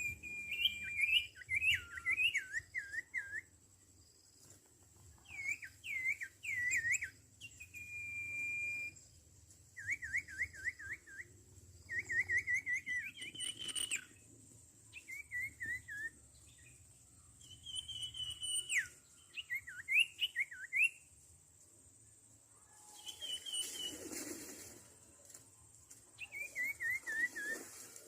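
Sirtu bird calling: short phrases of quick whistled notes that swoop up and down, repeated every few seconds with pauses between, some as a single held whistle. A faint steady high-pitched tone runs underneath, and there is a brief rustle about three-quarters of the way through.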